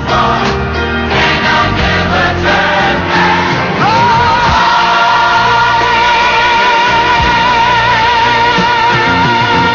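Gospel choir singing with instrumental backing. About four seconds in, one long high note with vibrato starts and is held to the end.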